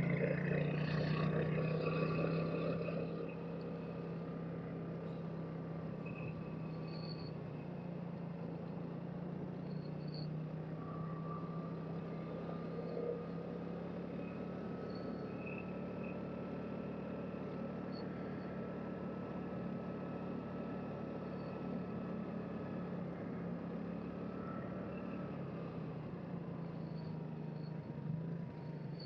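2007 Vespa LXV 150 scooter's single-cylinder four-stroke engine running steadily while riding, a little louder for the first few seconds and then settling to an even hum.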